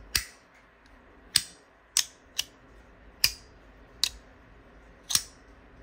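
Magnetic titanium fidget slider (Compoform Tesseract) snapping between positions: about seven sharp metallic clicks at uneven intervals as the strong magnets pull the sliding part into place.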